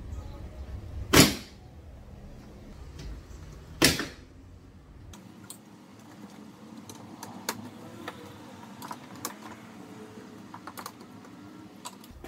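Plastic tabs of a stock grille being pried with a flathead screwdriver: two sharp snaps, about a second in and about four seconds in, then a run of light plastic clicks and rattles.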